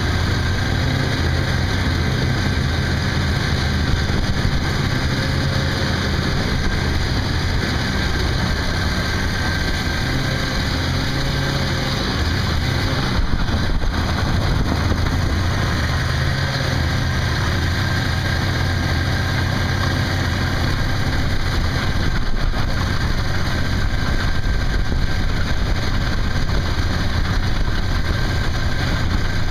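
Snowmobile engine running steadily under the rider as it travels over snow and a frozen pond, with a low hum and wind and track noise.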